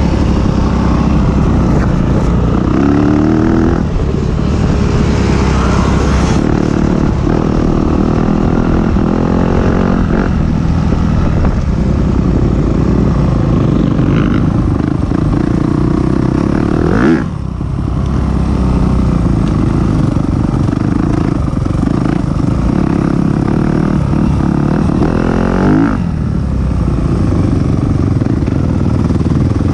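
Racing vehicle engine running hard throughout, its pitch rising and falling as it accelerates and changes speed. One sharp, loud moment comes a little past halfway, followed by a brief drop in level.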